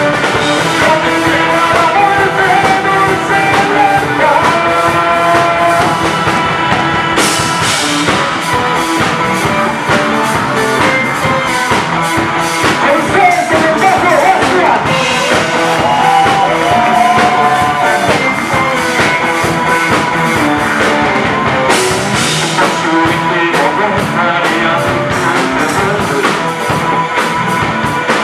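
Live punk rock band playing loudly: electric guitars, bass guitar and drum kit, with a keyboard on stage.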